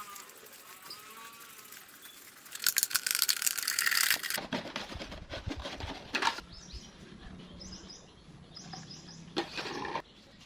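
Rustling and clattering for a couple of seconds, like materials being handled, then scattered clicks, a few short high chirps and a brief noisy burst near the end.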